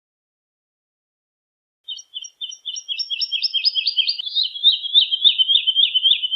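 Woodlark singing: after about two seconds of silence, one song phrase of repeated high notes that starts slowly and speeds up into a fast, slightly falling trill.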